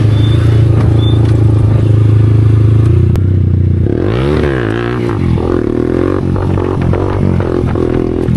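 Motorcycle engine running at a steady pitch, then from about four seconds in its pitch swings up and down.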